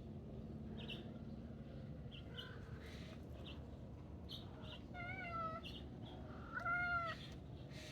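A Maine Coon cat meowing twice, about a second and a half apart, the second meow louder. Faint short chirps sound in the background.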